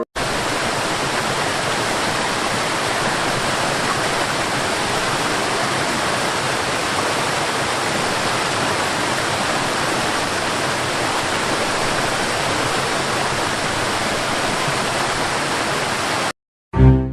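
Water plunging down a high waterfall (about 175 m drop): a steady, even rush of noise that cuts off suddenly near the end.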